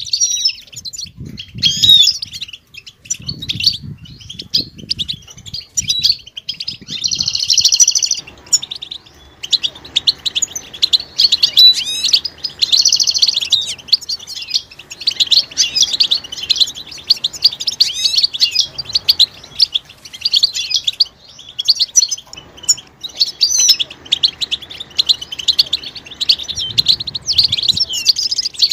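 Several European goldfinches twittering and calling together in a dense, continuous stream of quick chirps and liquid trills.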